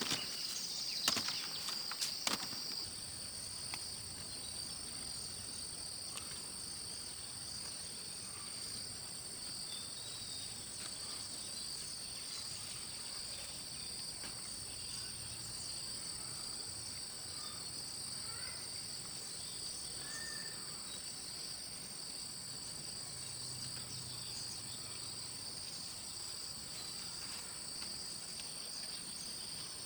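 Steady, high-pitched chorus of insects, shrilling at two pitches at once, with a few sharp knocks in the first two seconds or so.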